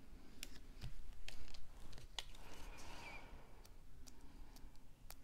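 Light scattered clicks and a brief rustle about two and a half seconds in, from cardstock pieces and foam tape squares being handled and pressed on by hand.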